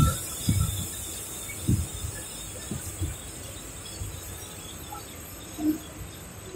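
Train running along the track, heard from on board: a low steady rumble and hiss, with a few short low knocks from the wheels in the first three seconds.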